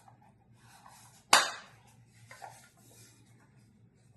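One sharp knock about a second in, as a part of the smart lock is handled, with faint rustling and small clicks around it.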